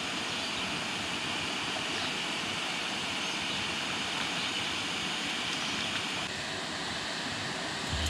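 Steady rush of water pouring through a large dam spillway. The rush thins slightly at the top about six seconds in.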